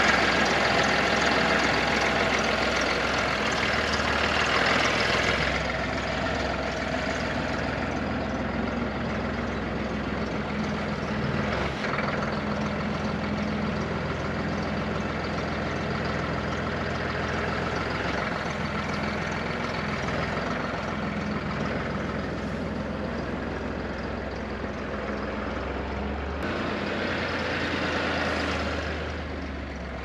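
Tractor engine running steadily while its front-end loader carries a round hay bale to the truck bed and sets it down. Louder for the first few seconds, then steady.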